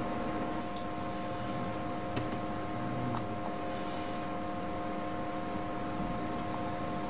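Room tone: a steady hiss with a faint constant hum, broken by a couple of faint clicks about two and three seconds in.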